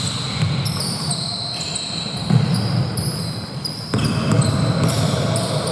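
Basketball court sounds in a gym: sneakers squeaking on the floor in short high-pitched chirps, with a ball bouncing and the hall's low background rumble.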